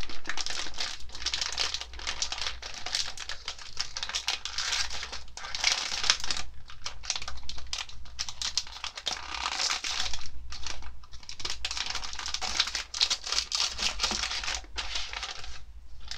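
Plastic wrapper of a Popin' Cookin' candy-kit packet crinkling as it is torn open and handled, in irregular crackly bursts with short pauses.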